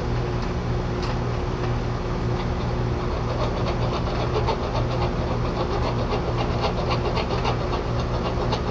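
Quick, repeated rasping strokes of a hand tool scoring and filing a copper refrigerant line, about three strokes a second, starting a couple of seconds in. This scuffs the line clean for a temperature clamp. Under it is the steady hum of the heat pump's outdoor unit running.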